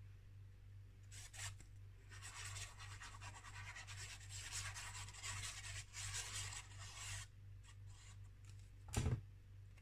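Plastic nozzle of a squeeze bottle of liquid glue rubbing and scratching across the back of a sheet of paper as lines of glue are laid down, a faint scratching for several seconds. A single dull thump comes near the end, over a low steady hum.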